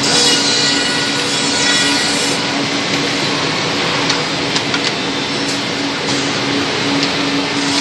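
CNC double-end tenoning machine with four cutter heads, two per side, running: a steady machine noise with a pulsing low hum and a few light clicks.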